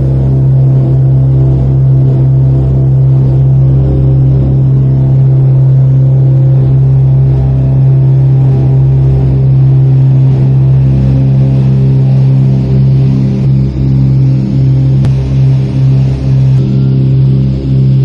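Small airplane's piston engine and propeller heard from inside the cabin, running at a steady, constant pitch. The loudness flutters rapidly in the last few seconds.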